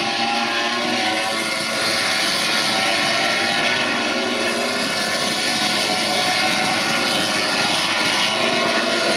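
Several MotoGP racing motorcycles, four-stroke 1000 cc prototypes, passing at high revs, their engines overlapping into a steady, continuous high whine.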